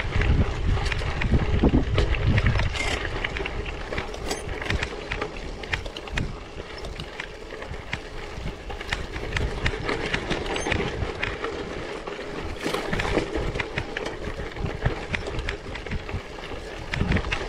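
Bicycle on 700x38c tyres riding over rough, rocky ground: the tyres crunch and the bike rattles with dense, irregular clicks. Wind rumbles on the microphone, heaviest in the first few seconds.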